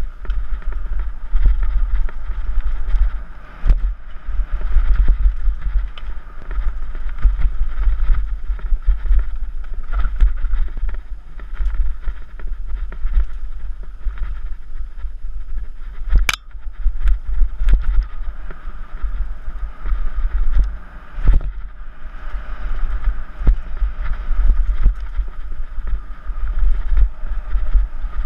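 Mountain bike ridden fast along a dirt trail: wind buffeting the bike-mounted camera's microphone in a steady heavy rumble, with tyre noise and frequent rattles and clicks from the bike, one sharp clack about 16 seconds in.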